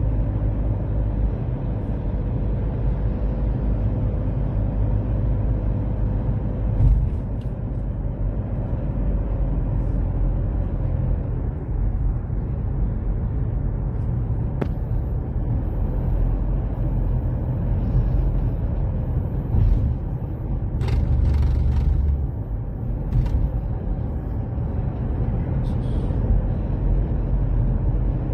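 Steady low rumble of road and engine noise heard inside a moving car's cabin, with a single thump about seven seconds in.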